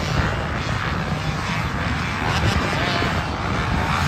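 Motocross dirt bikes running on the track at a distance, engines rising and falling in pitch as the riders rev.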